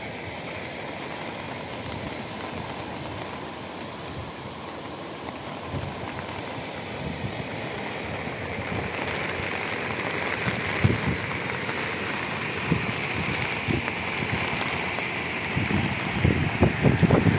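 Muddy floodwater rushing over a full check dam's spillway, a steady rushing that grows louder toward the end, with wind buffeting the microphone in the last second or two.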